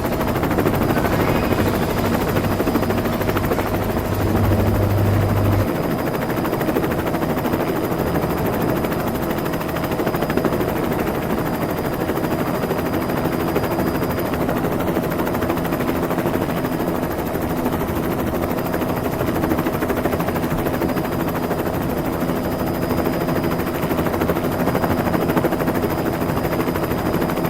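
Kiddie helicopter ride playing a steady helicopter sound effect through its speaker. A low hum underneath cuts off about six seconds in.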